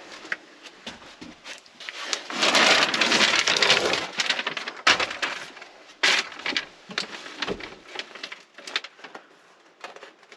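Foil-backed sound deadener sheets crackling and crinkling as they are handled and stuck onto the van door's bare sheet metal, with scattered sharp crackles and knocks. The crackling is loudest from about two to four seconds in.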